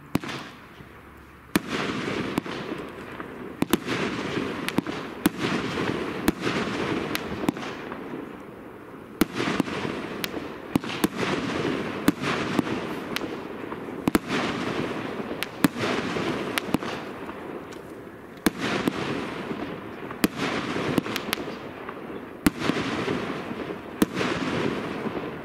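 Category F3 fireworks battery (Tropic Exploder 4) firing. A long run of sharp reports, at times several a second, starts about a second and a half in, with a dense hiss between the reports and a few short lulls.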